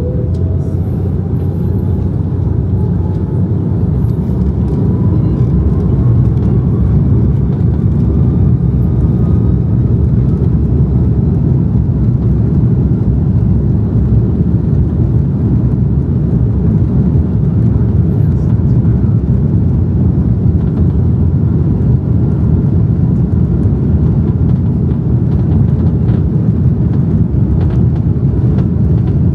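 Airliner's jet engines heard from inside the cabin over the wing: a loud, steady rumble with a whine rising in pitch over the first ten seconds or so as power builds for the takeoff roll.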